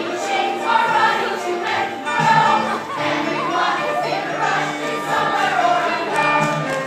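A stage musical's cast singing together as a chorus over instrumental accompaniment.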